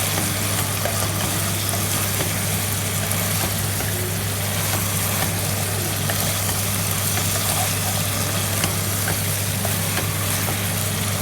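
Food sizzling in a frying pan, a steady fine crackle with scattered small pops, over a constant low hum.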